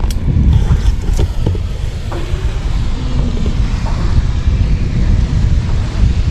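Wind buffeting the microphone, a steady low rumble, with a few sharp clicks in the first second and a half.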